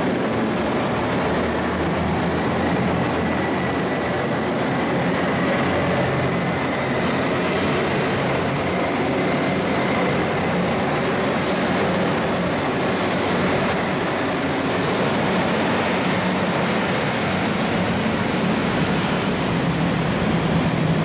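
Diesel limited-express train pulling out of the station and running past, its engines under power with a high whine that rises over the first couple of seconds and then holds, over a low rumble. A steady hiss of heavy rain lies underneath.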